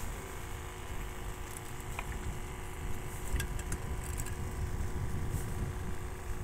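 Wind buffeting the microphone in a low, uneven rumble, over a faint steady hum, with a few light clicks.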